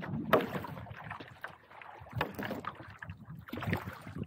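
Lake water lapping and splashing close to the microphone in irregular small slaps, with a sharper splash shortly after the start.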